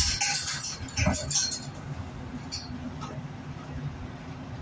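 Steel meat hooks clinking against the overhead rail as a beef hindquarter is handled and hung, a quick run of metallic clinks in the first second and a half, then a steady low hum.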